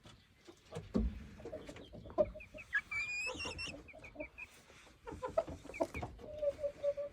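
Chickens clucking, with a short high-pitched call about three seconds in and a low drawn-out call near the end.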